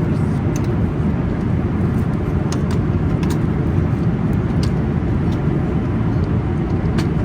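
Steady cabin noise inside a Boeing 777-300ER in flight: an even, unbroken low rumble of airflow and engines, with a few faint small clicks now and then.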